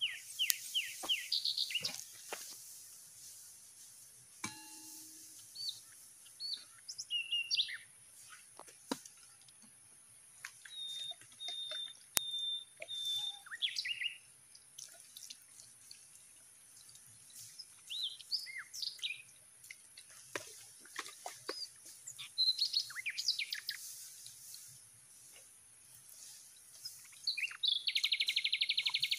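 Wild birds chirping and whistling in short scattered calls, with a fast trill near the end, over a steady high-pitched hiss, with a few faint clicks.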